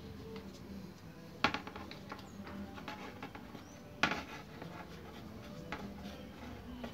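Handling noises of rod-repair work: small clicks and taps, with two sharp knocks, one about a second and a half in and one about four seconds in, as things are set down or picked up. A few faint, short, high squeaks are heard between them.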